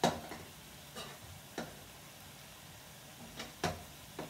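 A cooking utensil knocking and scraping against the side of a metal pot while noodles are stirred: about six irregular sharp knocks, the loudest right at the start. A faint frying sizzle runs underneath.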